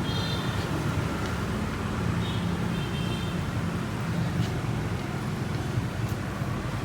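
Steady low mechanical rumble, with a few brief high chirps near the start and again about two to three seconds in.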